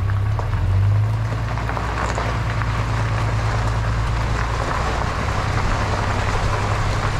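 Pickup truck with a camper on the back driving slowly on a gravel road: a steady low engine drone with the rough noise of tyres rolling over gravel.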